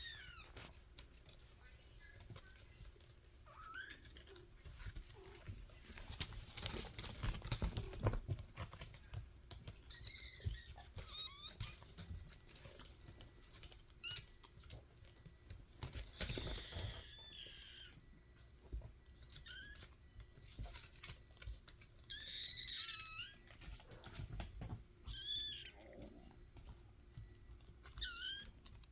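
Five-week-old kittens mewing: short, high-pitched cries that come every few seconds, about eight in all. Scattered clicks and rustling are heard between them, busiest about a quarter of the way in.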